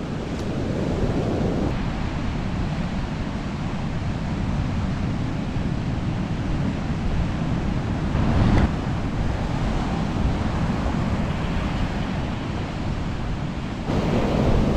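Ocean surf breaking and washing up a sandy beach, with wind rumbling on the microphone.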